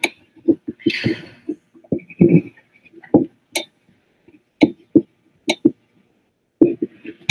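Irregular sharp clicks and knocks, more than a dozen over a few seconds, with a couple of brief rustling bursts, as from handling objects near an open microphone.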